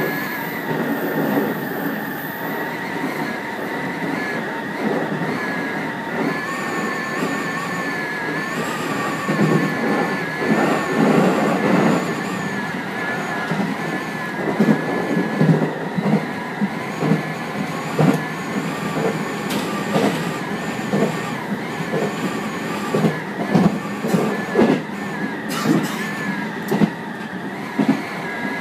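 JR 811-series electric train running, heard from inside the driver's cab: a steady high whine throughout, with the wheels knocking over rail joints and points from about nine seconds in, in an uneven rhythm.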